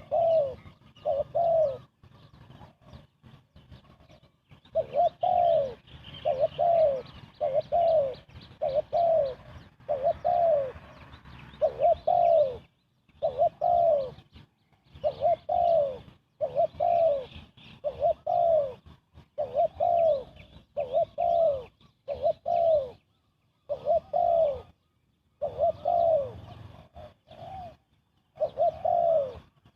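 Spotted dove cooing fast: a quick run of falling coo notes, about two a second, in short series broken by brief pauses.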